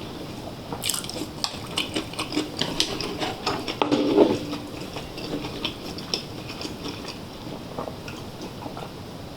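Close-up chewing of food: a run of small, sharp, wet mouth clicks, with a louder mouthful about four seconds in.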